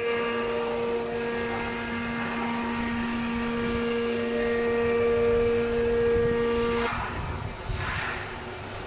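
STYLECNC 4×8 CNC router with automatic tool changer running: a steady, high-pitched machine whine that starts suddenly and cuts off abruptly about seven seconds in. A short hiss follows about a second later.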